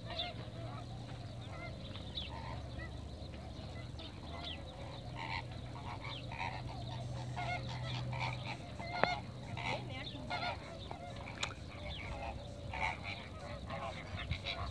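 Waterbirds on the lake calling: many short calls from several birds, overlapping and irregular, over a low steady rumble.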